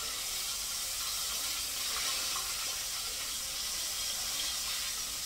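Breaded whiting fillets frying in oil at 400 degrees in a deep fryer: a steady, even sizzling hiss.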